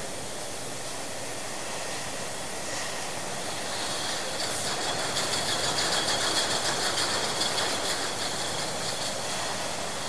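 Milk bottling plant's filling line running: a steady machine noise with a rapid, dense rattle and clicking of bottles. The rattle grows louder about four seconds in.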